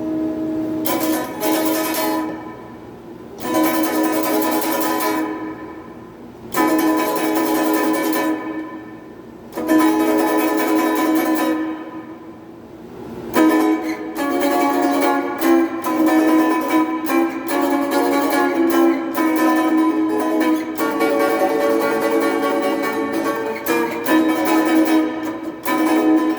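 Donner DST-80 Strat-style electric guitar played through its small included amp: four chords struck and left to ring out one after another, then, about halfway through, a busier run of picked chords and notes.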